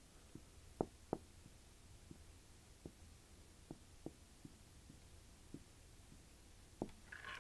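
Marker tip tapping and sliding on a glass writing board: soft, scattered clicks while words are written, with two louder taps about a second in, over a faint steady low hum.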